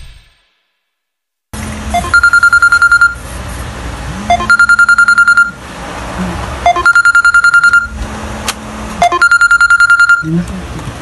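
Smartphone alarm going off after about a second and a half of silence: rapid high beeps in groups about a second long, about ten beeps a second, with the groups repeating every two and a half seconds or so.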